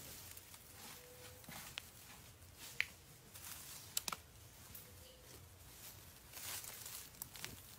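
Faint scattered rustling with a few short, sharp clicks, from people moving on dry straw and handling clothes and a bag.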